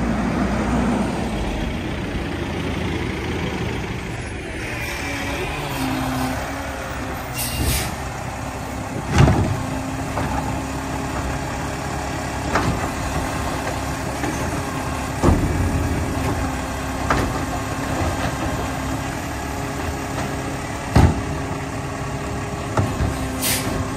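Mack automated side-loader garbage truck working a recycling pickup: the diesel engine runs on with a steady hum setting in about five seconds in as the hydraulic arm grabs, lifts and dumps a curbside cart. Three sharp bangs about six seconds apart, and two brief air hisses.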